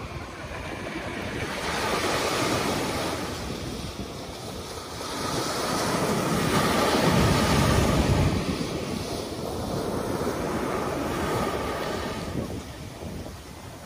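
Ocean surf breaking and washing up a sandy beach, swelling and fading in slow surges, the strongest about halfway through. Wind buffets the microphone.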